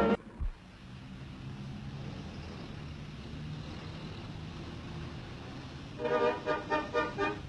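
A vehicle running with a steady low hum, after a single thump about half a second in; music comes back in about six seconds in.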